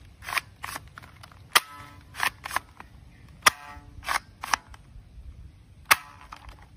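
Plastic toy pump-action shotgun being cycled and dry-fired three times. Each time the slide is racked back and forward with two short plastic rasps, followed by a sharp click that rings briefly.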